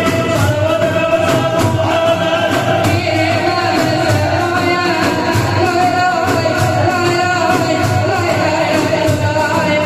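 Men singing a Sufi ilahi (hymn) together, accompanied by frame drums and a large drum beating a steady rhythm.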